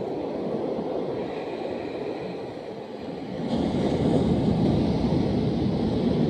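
Seaside outdoor ambience: a steady low rushing noise that swells louder about three and a half seconds in.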